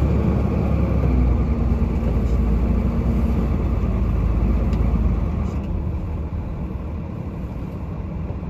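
Heavy truck's engine running, a steady low rumble heard from inside the cab, easing off a little about five seconds in.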